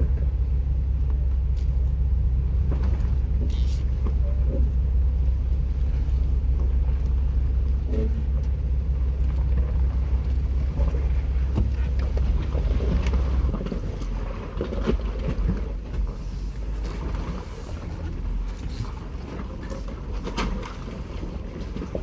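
Jeep Wrangler engine running under load on a steep rocky climb, a steady low drone that eases off about thirteen seconds in. Scattered knocks and clicks throughout, and a few short faint high beeps in the first half.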